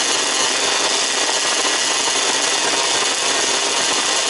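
Several 1/5-scale off-road RC cars' small two-stroke petrol engines running together, a steady, dense, high buzz.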